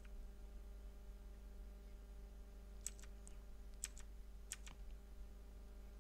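Faint clicking of a computer keyboard, about five sharp clicks between three and five seconds in, over a steady low electrical hum.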